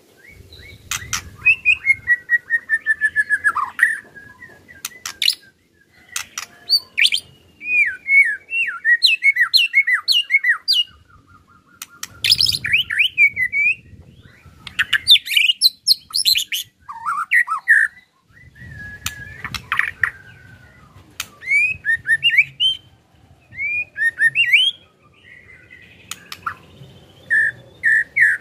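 White-rumped shama (murai batu) singing a loud, varied song in phrases broken by short pauses: clear whistles, quick trills and rattling 'ketrek' clicks.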